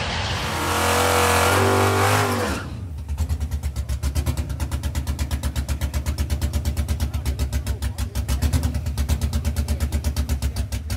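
A race car running down the drag strip, loud, its engine note falling about two seconds in as it comes off the throttle. Then a drag-race Chevrolet Camaro idles at the starting line with a choppy, evenly pulsing lope.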